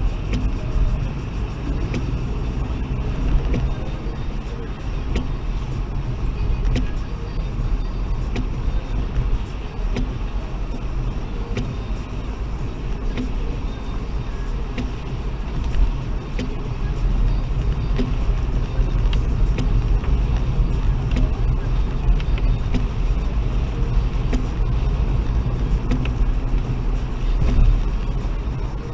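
Small car driving on a wet road, heard from inside the cabin: a steady low rumble of engine and tyres, with occasional light ticks.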